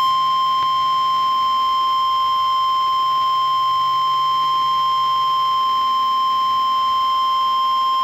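NOAA Weather Radio 1050 Hz warning alarm tone: one loud, steady high-pitched tone held unbroken, sounded as part of an Emergency Alert System Required Weekly Test.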